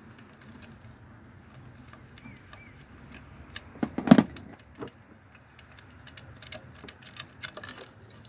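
Scattered sharp metal clicks and taps from tools and parts being handled, with one loud clank about four seconds in, over a faint steady hum.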